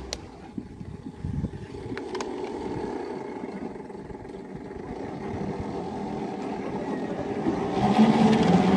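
A heavy machine's engine running steadily, with a couple of sharp clicks in the first seconds. It grows louder and brighter about eight seconds in.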